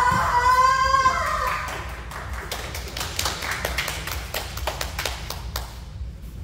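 A kendo fighter's drawn-out kiai shout that ends about a second and a half in. It is followed by a run of sharp taps and clacks, which are the bamboo shinai knocking together as the two fighters probe each other.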